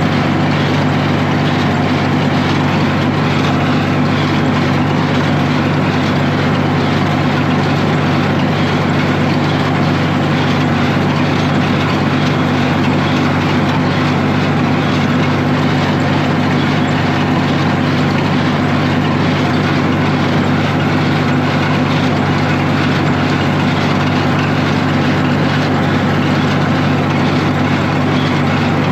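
Tractor engine running steadily, driving a New Holland 275 hay baler.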